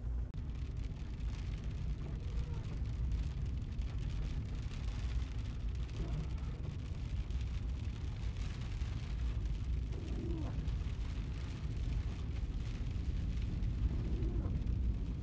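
Car driving on winding mountain roads, heard from inside: a steady low engine and tyre rumble with road noise.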